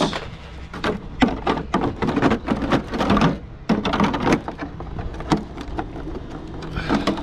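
Irregular clicks and knocks of a Traxxas X-Maxx RC truck being handled, its plastic body shell fitted back onto the chassis and pressed down by hand.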